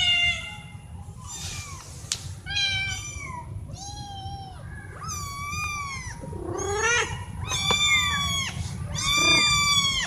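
Domestic cats meowing over and over, about nine calls one after another, each rising and falling in pitch, some high and some lower.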